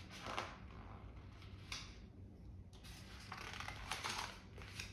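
Paper pages of a hardcover picture book being handled and turned: a few soft rustles, the longest a little past three seconds in.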